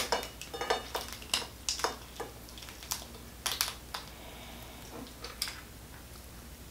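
Boiled lobster shell being cracked and pulled apart by hand: a run of irregular crackles and snaps that thins out after about four seconds.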